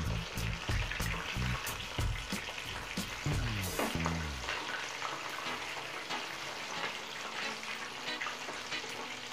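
Flour-coated chicken pieces deep-frying in hot oil in a kadhai: a steady sizzle with many small crackling pops, as metal tongs turn the pieces over. A low hum runs underneath for the first half and stops about four and a half seconds in.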